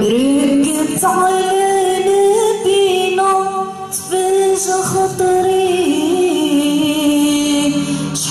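Women's vocal group singing an Islamic devotional chant (inshad). The melody slides up at the start and moves on in long held notes with vibrato.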